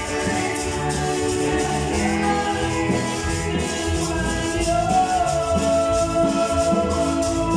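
Live church band playing worship music: electric bass, drum kit and keyboard, with a male voice singing.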